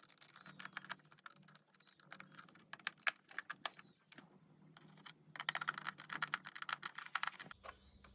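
A small screwdriver drives screws into a laptop's plastic bottom cover, making runs of rapid clicking with faint high squeaks, broken by short pauses. A low hum comes in near the end.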